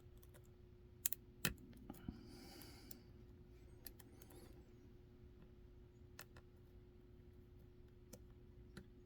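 Lock pick working the pins of a Dom 333 RN pin-tumbler lock: a few sharp clicks about a second in, a short scrape of the pick, then scattered faint ticks.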